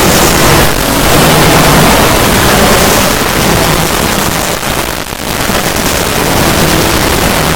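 Loud, dense rushing noise across the whole range, with a brief dip about five seconds in.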